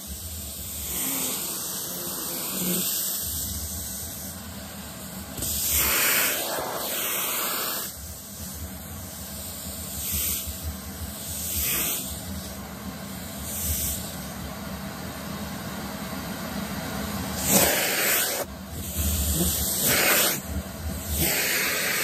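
Vacuum cleaner running with its floor nozzle drawn through a doll head's long hair. The hissing airflow surges louder several times, each surge lasting about a second.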